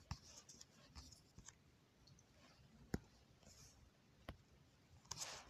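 Near silence broken by a few faint, scattered clicks and taps.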